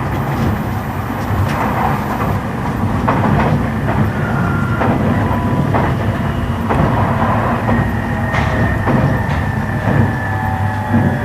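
Running noise inside an E353-series electric train's motor car: a steady low rumble of wheels on rail, with scattered clicks over rail joints. From the middle on, thin whining tones of the IGBT-VVVF traction inverter and motors come and go at several pitches.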